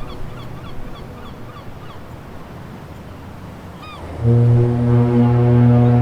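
Sumburgh Head foghorn sounding. The end of one deep blast trails off at the start. After a few seconds of sea noise and short bird calls, a loud, low, steady blast begins about four seconds in and carries on.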